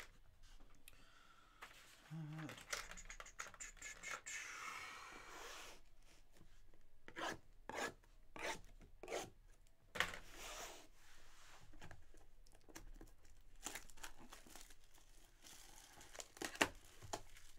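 Plastic shrink wrap being torn and peeled off a sealed trading-card box, crinkling and rubbing against the cardboard in irregular short strokes, with a longer crinkle about five seconds in.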